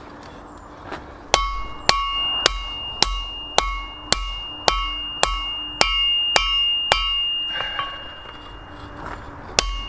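Hand hammer forging a hot steel file on an anvil: a run of about eleven blows at roughly two a second, each with a ringing note, then a pause and one more blow near the end. A steady low hum runs beneath.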